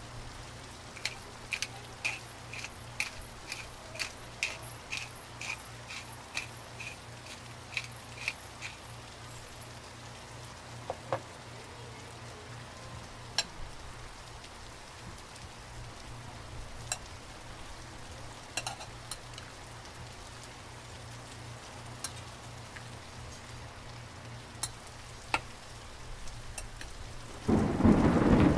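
A metal spoon clinks against a glass bowl about twice a second while stirring sliced beef, then gives a few scattered lighter clicks, over a steady patter of rain. Near the end a loud low rumble of thunder comes in.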